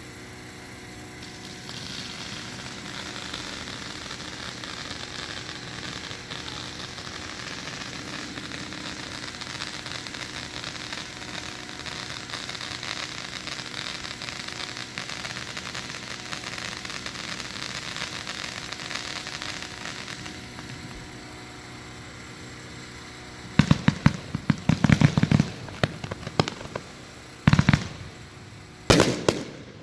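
Consumer 25-shot firework cake. A steady hissing crackle runs for most of the first two-thirds, then the cake fires rapid volleys of sharp shot bangs from about three-quarters in, with a few more shots near the end.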